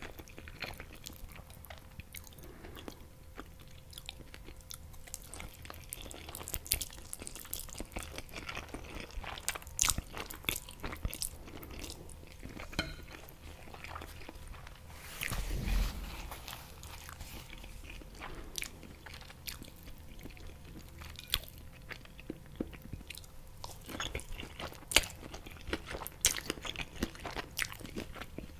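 Close-miked chewing of a mouthful of green-sauce noodles and fried jack mackerel: wet mouth clicks and small crunches throughout. A single low thump comes about halfway through.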